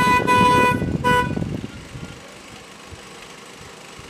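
Car horn honking: one toot of about a second, then a short second toot.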